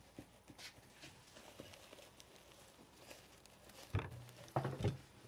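Quiet room with faint scattered taps and light footsteps. About four seconds in, a shopping bag is set down on a table with a sharp knock, followed by a few short rustles and bumps from its contents.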